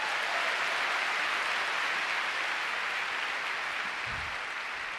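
Large concert audience applauding, a dense steady clapping that slowly fades toward the end.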